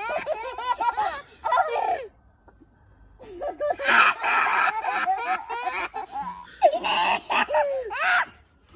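Two small children's voices: high crying and laughing cries for the first two seconds, then after a short pause about five seconds of loud shrieking and yelling.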